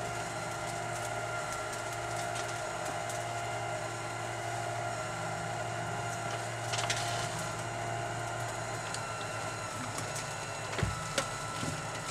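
Litter-Robot self-cleaning litter box's drive motor running steadily as it turns the globe through a cleaning cycle, with a few light knocks about seven seconds in and again near the end.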